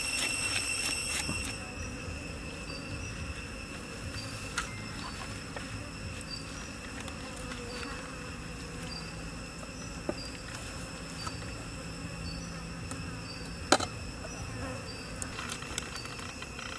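Steady drone of forest insects: a thin high tone with a short pulse repeating about once a second. A few sharp knocks cut in, the loudest about 14 seconds in.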